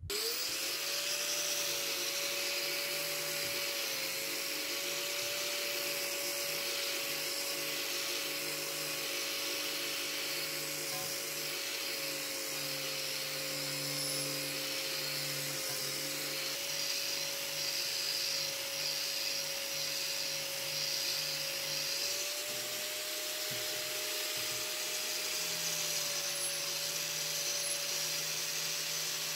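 Einhell angle grinder with a wire wheel brush spinning up and then running steadily against a rusty steel axe head, a constant motor whine over a scouring hiss as the rust is stripped. The pitch sags and recovers slightly as the brush is pressed on and eased off.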